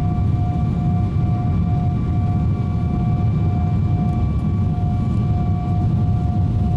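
Jet airliner cabin noise during the climb after takeoff: a steady engine rumble with a steady whining tone over it.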